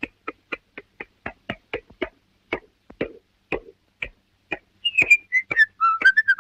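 Early-1930s cartoon soundtrack effects: a run of short, dry knocks, about four a second, slowing to about two a second halfway through. Near the end, a whistle joins in, gliding up and down in pitch.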